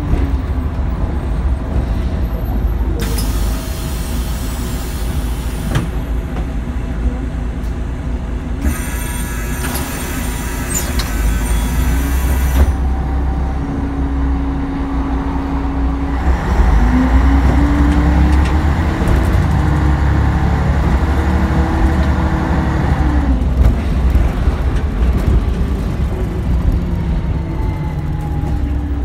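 City bus heard from inside: the engine drones throughout, with two separate blasts of compressed-air hiss in the first half as the bus pulls away from the stop. About halfway in, the engine and drivetrain whine rises as the bus accelerates, holds, then drops off as it eases off toward the traffic lights.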